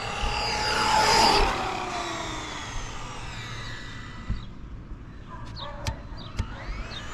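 Whine of an RC truck's Hobbywing XeRun XR8 brushless power system (G3 motor) at speed on a full-throttle speed run. It is loudest about a second in as the truck passes close, then fades away and builds again near the end. A few short clicks and chirps come in the quieter middle.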